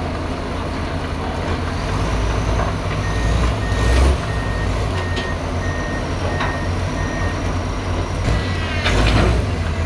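Excavator's diesel engine running steadily under a travel or backup alarm beeping evenly at one pitch for about four seconds. Two louder noisy bursts stand out, one about four seconds in and another near the end.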